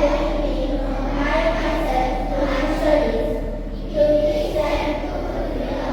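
A group of children singing together, holding long notes in phrases, over a steady low hum.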